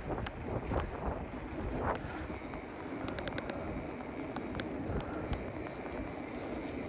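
Wind buffeting the microphone while riding a bicycle: a steady, rumbling rush of noise with a few faint clicks.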